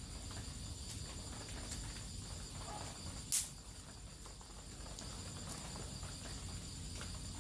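An electric mosquito racket zaps once, a short sharp crackle about three seconds in, over a faint steady night background with thin high tones.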